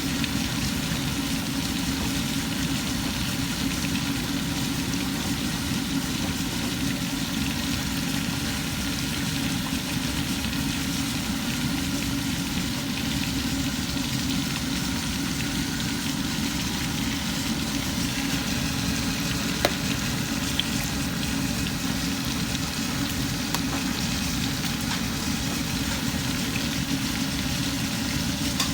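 Chicken frying in hot oil: a steady sizzle, with a faint tap about two-thirds of the way through.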